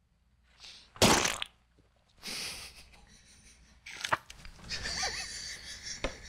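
A face smashed into a frosted cake: a loud, short wet squish about a second in, then softer squishing. A couple of sharp clicks follow around four seconds in, and muffled noises continue near the end.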